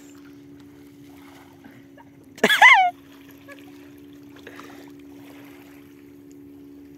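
Light splashing and trickling of sea water as a cast net is worked by a person wading, over a steady low hum. A brief shout rings out about two and a half seconds in.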